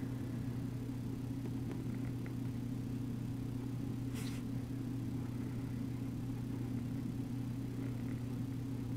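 A steady low hum with a higher overtone, with faint, brief scratches of a fine-tipped marker on drawing paper over it; the clearest scratch comes about four seconds in.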